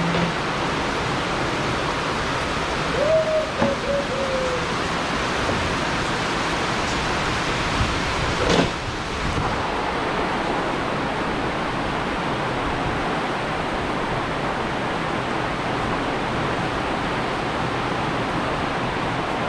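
Heavy rain pouring down steadily. A short falling call comes about three seconds in, and a single knock about eight and a half seconds in.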